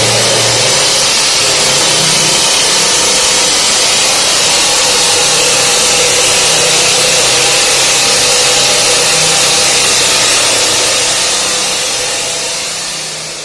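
Diamond-blade concrete saw cutting reinforced concrete: a steady, loud grinding whine with an engine running underneath. The sound fades away over the last few seconds.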